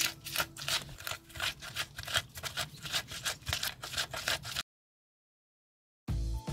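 Wooden pestle grinding and scraping onions, ginger and peppers against the ridged inside of a clay asanka grinding bowl, in quick regular strokes. The grinding cuts off about four and a half seconds in, and music starts near the end.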